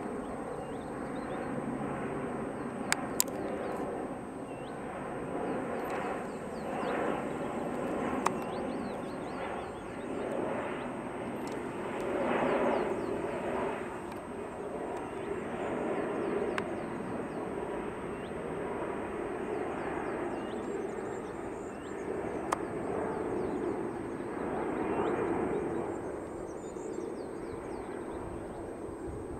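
Airbus A330-300 airliner passing over on landing approach, the engine noise of its General Electric CF6 turbofans swelling and fading, loudest about twelve seconds in and again near the end. A few sharp clicks stand out above it.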